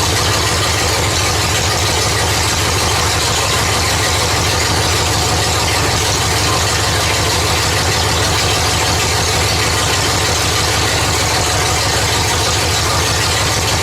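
Sand rail's Chevy 3.1L V6 engine idling steadily, running on its engine computer while that computer learns its newly replaced sensors.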